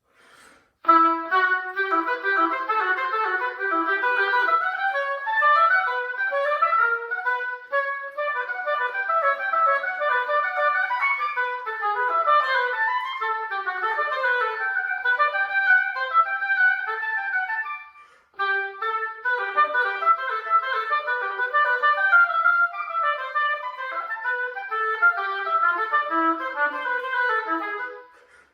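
Solo oboe playing a fast passage of quick running notes, unaccompanied, with a brief break about eighteen seconds in before the line continues.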